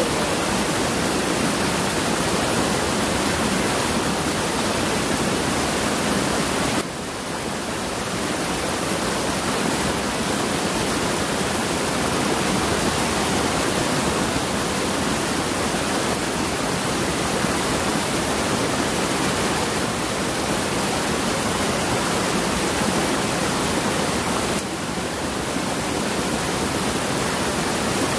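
Steady rushing of a shallow river running over rocks, with two brief dips in level, one about a quarter of the way in and one near the end.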